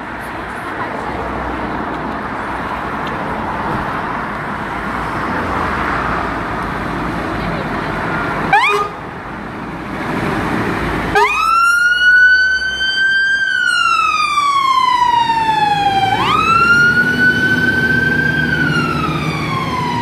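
Fire engine (water tender) running as it pulls out, with a short siren chirp about eight seconds in. About halfway through the siren starts its wail: each cycle sweeps quickly up and then slides slowly down over about five seconds. The truck's engine is heard under it as it drives off.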